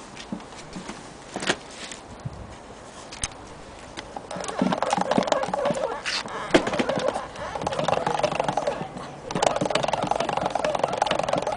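Antique gramophone's spring motor being wound by its side crank handle: a dense, rapid ratcheting clatter starts about four seconds in, breaks off briefly near nine seconds, then resumes. Before it, only a few scattered clicks of handling.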